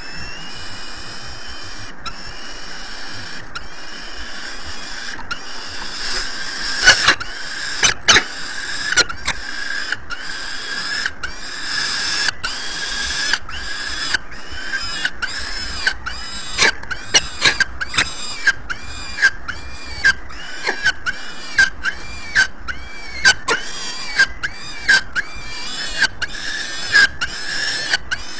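Peregrine falcon chick giving shrill begging calls while an adult tears up prey to feed it, over a steady hiss. The calls repeat, growing frequent from about six seconds in and coming about twice a second later on.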